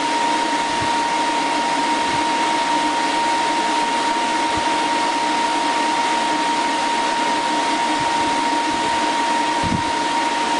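Steady whirring of a running motor, with a constant thin whine on top and a few faint low thuds under it.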